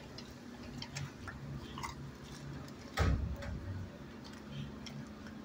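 Dog taking food from a hand at a wire kennel gate: scattered small clicks and mouth sounds, with one louder thump about three seconds in, over a steady low hum.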